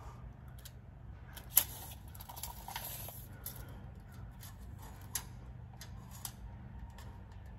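Light clicks and taps of a steel tape measure blade being handled against a car's metal chassis, with one sharp click about a second and a half in, followed by a brief sliding hiss. A steady low hum runs underneath.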